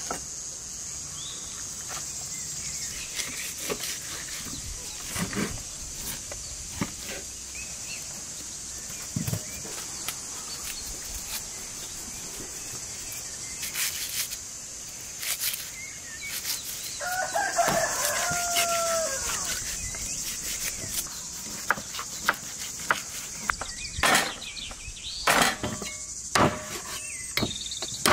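A knife cuts and trims a raw lamb leg on a wooden board, giving scattered knocks and scrapes that grow louder and more frequent near the end. Under it runs a steady high-pitched insect chorus, and a rooster crows once a little past the middle.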